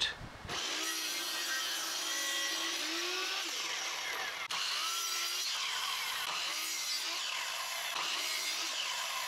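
Chicago Electric sliding compound miter saw running and cutting through a 4x4 wooden post, with the head tilted for a bevel cut. The sound is steady sawing with a brief break about halfway through.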